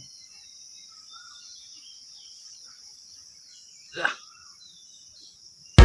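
Steady high-pitched chirring of insects, with a few faint bird chirps. A brief louder sound comes about four seconds in, and music with drums starts abruptly at the very end.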